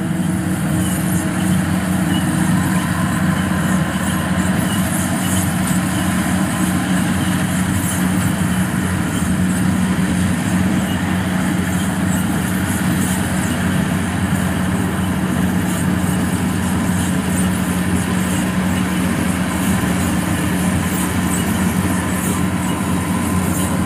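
Kubota DC-105X combine harvester running steadily under load as it cuts lodged rice: an even diesel engine drone with machinery hiss, no change in pitch.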